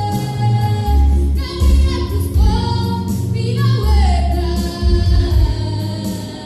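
A church worship team sings a gospel song together into microphones, over heavy repeated bass notes from the accompaniment.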